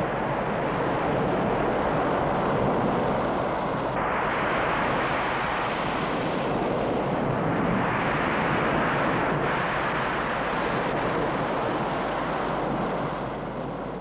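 Roar of heavy surf breaking, a steady rushing noise that fades away near the end, heard on an old film soundtrack.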